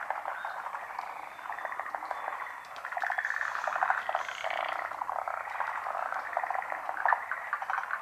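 A large chorus of frogs calling from a pond: many frogs at once, in overlapping trains of rapid pulsed croaks that thin briefly a little before three seconds in and then build again.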